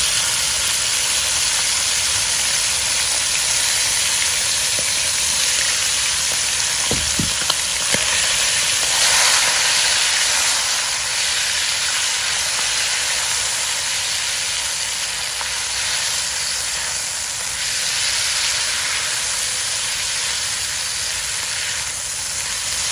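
Turmeric-coated squid rings sizzling steadily as they fry in hot oil in a wok, with two short knocks a little after seven and eight seconds in.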